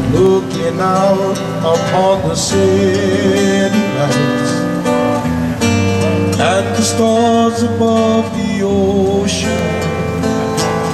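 Band music with strummed guitars and a man singing.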